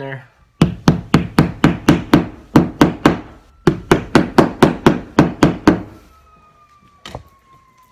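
Hammer tapping plastic wall anchors into a drywall wall: two quick runs of sharp blows, about four a second, with a short pause between them.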